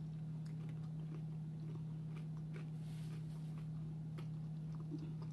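Quiet chewing with scattered soft mouth clicks from someone eating a seafood egg roll, over a steady low hum.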